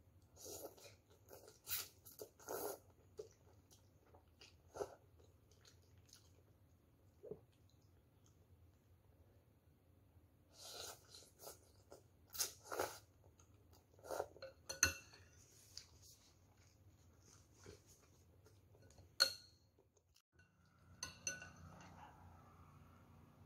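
A person eating noodles: slurping and chewing in short clusters of wet mouth sounds, with a couple of sharp clicks of a utensil against the bowl.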